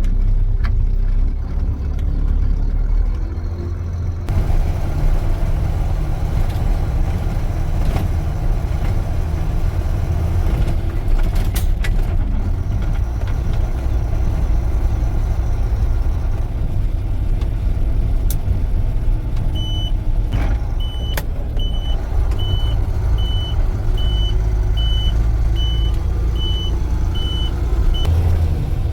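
Concrete pump truck's diesel engine running as the truck gets under way, its pitch shifting a few seconds in. About two-thirds of the way in, a high beep starts repeating about once a second, ten or so times, with a few sharp clicks along the way.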